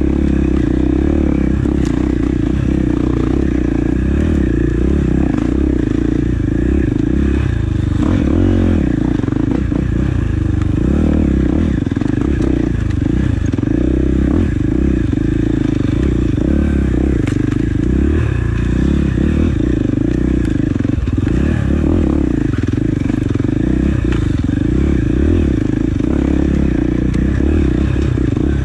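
KTM 450 XC-F dirt bike's single-cylinder four-stroke engine running loud as the rider opens and closes the throttle on a rough trail, with occasional knocks and clatter from the bike over the ground.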